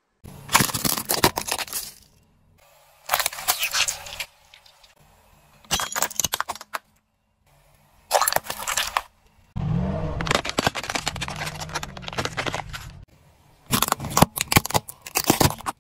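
Car tyre rolling over and crushing a run of objects, among them a plastic bottle and small plastic toy cars: six separate bursts of crunching and crackling plastic, the longest one in the middle carrying a low rumble under the crackle.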